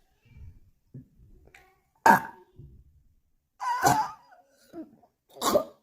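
A person coughing three times in short, harsh bursts, about two seconds in, near the middle and near the end; the first is the loudest.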